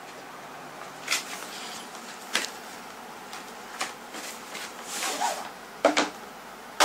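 A GoPro Hero 9 Black box being opened and handled: scattered clicks and knocks, a short sliding rustle about five seconds in, then two sharp clicks close together near the end.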